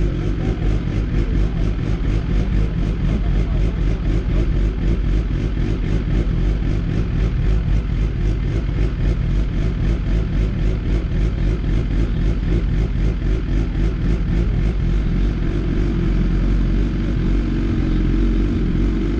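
BMW S1000RR's inline-four engine idling steadily, heard close up from a camera mounted on the bike, with no revving.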